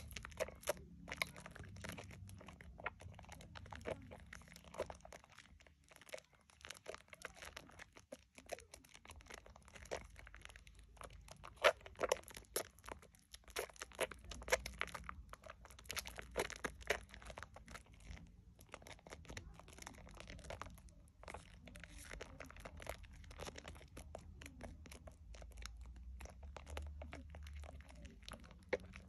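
Wet, squishy crackling of thick soap lather as hands knead and squeeze a wet Dove shea butter bar soap, a steady run of small irregular pops and squelches. One sharper squelch comes about twelve seconds in.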